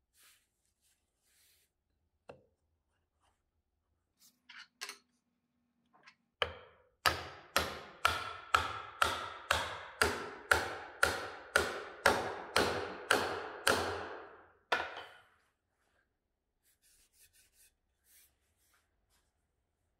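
A run of about sixteen evenly spaced knocks, roughly two a second, each ringing briefly: a wooden tenon joint being tapped home. A few light wooden clicks come before them as the pieces are fitted.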